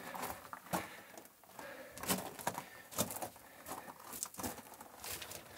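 Footsteps crunching and scuffing on loose rock and dusty gravel in a narrow rock tunnel, irregular, with the sharpest crunches about every half second to second.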